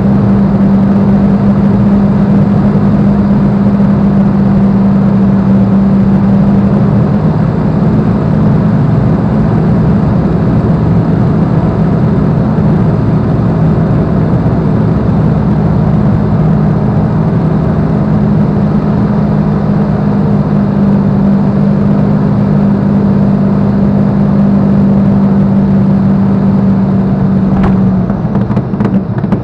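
A Spitfire's V12 piston engine heard from inside the cockpit, a loud steady drone through the approach and landing. Near the end the sound drops and turns uneven as the aircraft is on the runway.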